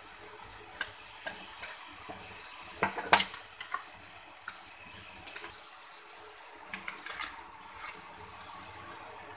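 A metal spoon stirring thick yogurt and chopped fruit in a bowl, with irregular light clicks and scrapes of the spoon against the bowl; the loudest clicks come about three seconds in.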